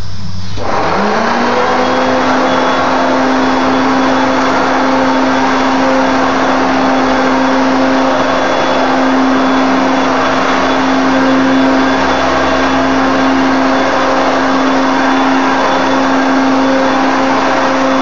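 Hoover Concept One Power Drive upright vacuum cleaner switched on about half a second in. Its motor spins up within a second to a steady hum and runs on evenly while it is pushed back and forth over carpet.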